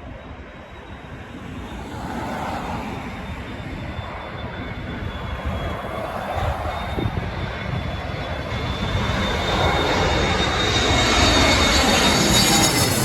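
Jet airliner flying low overhead, its engine noise building steadily to its loudest near the end, with a thin high engine whine running through it.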